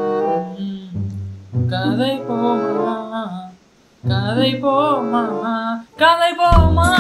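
Background song: a voice singing short phrases over bass notes and guitar, with a heavy beat kicking in near the end.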